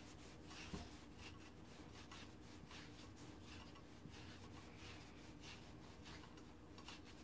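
Faint rasping strokes, about two a second, of an Andis shedding tool raked through an English Cocker puppy's coat, stripping out the dark undercoat fuzz.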